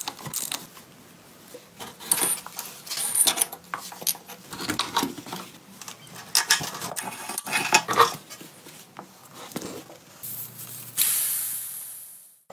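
Metal clinks and clicks of a ratchet and spanner working the nuts on an old motorcycle's wheel hub and axle, in irregular bursts. Near the end a hiss starts suddenly and fades away.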